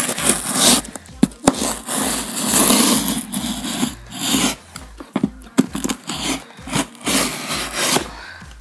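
Brown-paper postal parcel being scraped, rubbed and torn open at close range, in a run of rasping strokes with sharp clicks that stops about eight seconds in.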